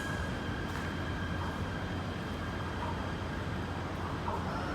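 KLIA Transit electric train departing: a steady low rumble, with a thin high whine fading out at the very start.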